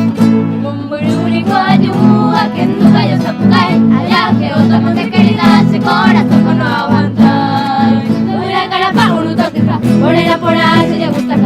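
Voices singing a Paraguayan polka over a plucked-string accompaniment.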